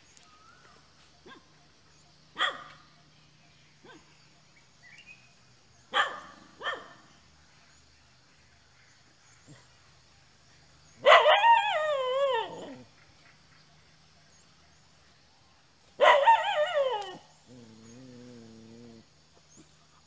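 Dogs barking: single short barks a few seconds apart, then two loud, long wavering howls that drop in pitch at the end, about eleven and sixteen seconds in. A lower, quieter drawn-out call follows the second howl.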